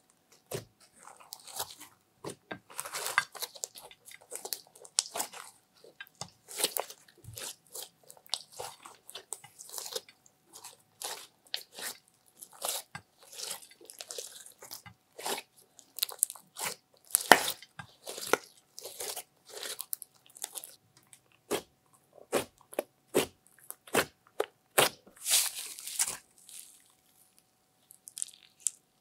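Hands kneading and squeezing a thick lump of glitter- and clay-filled slime, giving rapid, irregular sticky crackles and clicks. It stops about three seconds before the end.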